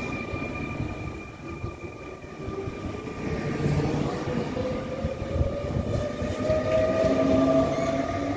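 Z2N double-deck electric multiple unit pulling out of a station. Its traction drive gives a rising whine as it gains speed, over steady high-pitched whines and rumbling wheels on the rails.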